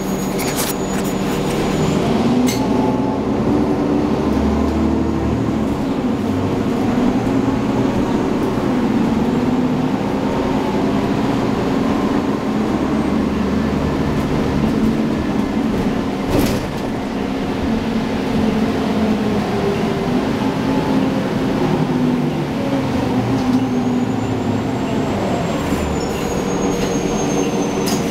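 Cabin ride noise of a 2010 Nova Bus LFS city bus under way: a steady drone from the engine and driveline over road rumble. A sharp knock about two-thirds of the way through, and a faint high whine that rises and falls near the end.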